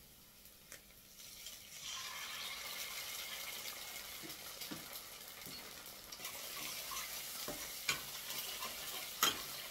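An egg frying in hot oil in a frying pan: a steady sizzle starts about two seconds in as the egg goes into the oil. Near the end a few sharp clicks come as a spatula works against the pan.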